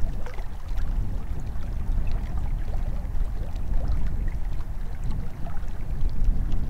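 Wind buffeting the microphone as a low, gusting rumble, with a few faint ticks above it.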